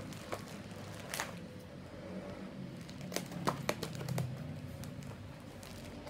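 Plastic packaging crinkling and crackling as a mail package is handled and torn open, with scattered sharp crackles, several close together about three seconds in.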